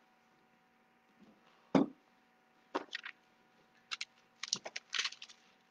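Faint handling noises at a wooden pulpit: a soft knock about two seconds in, then a few light clicks and rustles.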